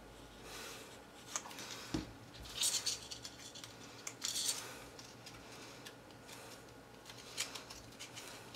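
Faint handling of cardstock pieces while gluing paper craft: two short rustling swishes and a few light taps.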